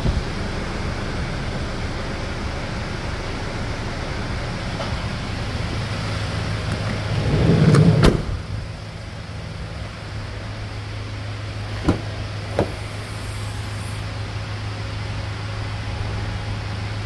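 Hyundai Starex van engine running steadily with a low hum. About eight seconds in, a louder swell builds and cuts off sharply with a click, after which the hum settles lower. Two short sharp clicks follow a few seconds later.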